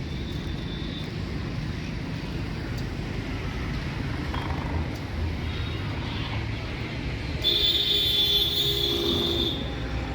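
Steady rumble of road traffic. About seven and a half seconds in, a loud, high-pitched tone lasts about two seconds, then stops.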